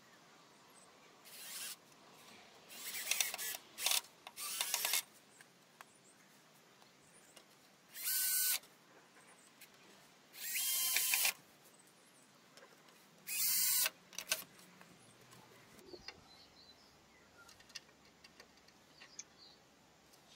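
Bosch cordless drill driver running in about seven short bursts, each a second or less, driving self-tapping screws through a metal support strap into the wooden bench slats. Only faint ticks and handling sounds follow in the last few seconds.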